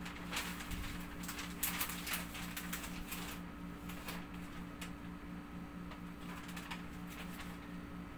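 Rustling and crinkling of a large sheet of frosted privacy window film being handled and peeled from its backing, busiest in the first three seconds and sparser after. A steady low hum runs underneath.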